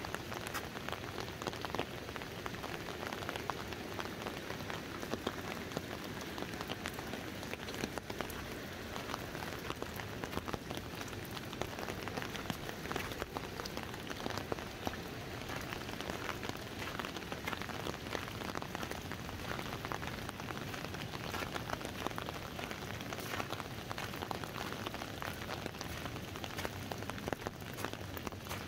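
Steady rain falling on an open umbrella overhead, many separate drops ticking on the fabric over an even hiss of rain on water and ground around.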